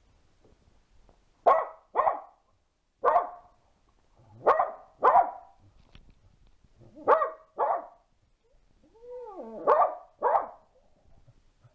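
Dog barking: nine short, sharp barks, mostly in pairs about half a second apart. Just before the last pair comes a brief whine that slides up and down.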